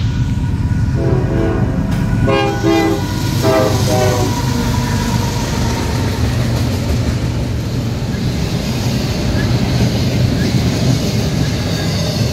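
Freight train locomotive horn sounding several short blasts in the first few seconds, followed by the steady rumble and clatter of double-stack intermodal container cars rolling past.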